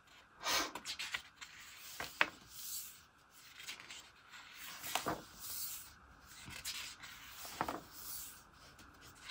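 Glossy photo-book pages being turned one after another by hand, each turn a short, faint paper swish.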